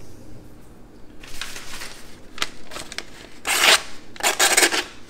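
A dull folding knife blade drawn through paper in a few rasping strokes, the paper tearing and crinkling rather than being sliced cleanly, the sign of a dull edge.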